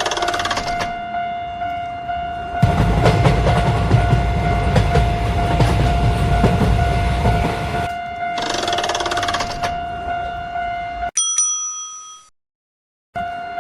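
Railway level-crossing warning bell ringing steadily, with a train rushing past through the middle of it for about five seconds. The alarm stops about eleven seconds in, a short different tone sounds, and after about a second of silence the crossing alarm starts again near the end.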